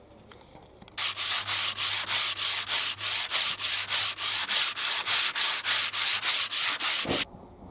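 Sandpaper rubbed briskly back and forth over a wooden canoe paddle blade, about four rasping strokes a second. It starts about a second in and stops shortly before the end.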